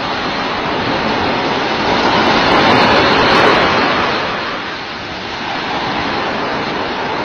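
Surf washing on a beach: a steady rushing that swells about two seconds in and eases off about five seconds in.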